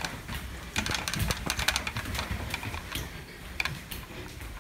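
Footsteps hurrying up a flight of stairs: a run of irregular light knocks and clicks, several a second.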